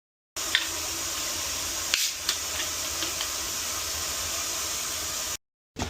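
A steady hiss with a few light clicks, cutting off abruptly near the end.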